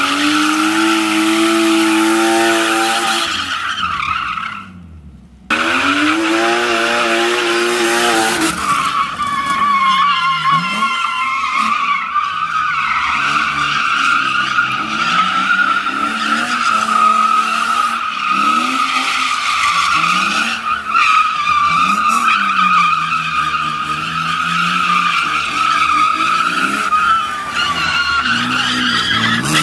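BMW E36 drifting on concrete: a steady, high tyre squeal over the engine revving up and falling back again and again as the throttle is worked. The sound briefly falls away about four to five seconds in.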